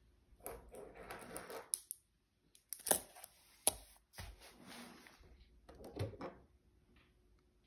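Handling sounds: paper rustling and sliding on a wooden table for the first two seconds, then sharp clicks of a stainless-steel watch bracelet as a Rolex Oyster Perpetual 34 is set down and nudged on the paper, with a soft knock near the end.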